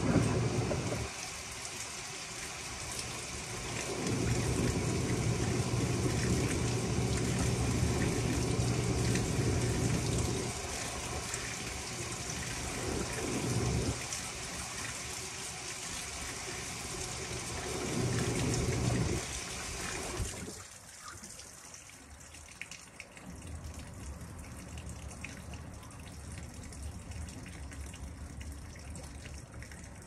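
Panasonic top-loading washing machine filling and agitating: water hisses as it pours into the tub while the motor hums in three bursts as it turns the load. The water stops about twenty seconds in, leaving a low quiet hum.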